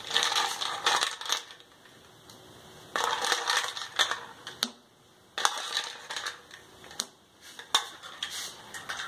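Ice cubes rattling in a bowl and being dropped into a glass of milkshake: three spells of clattering, then a couple of single clicks near the end.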